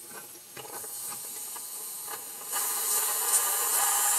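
Live steam hissing from a Retrol model steam engine's boiler as its valve is opened. A few light metal clicks come first, then the steady high hiss comes in suddenly about two and a half seconds in.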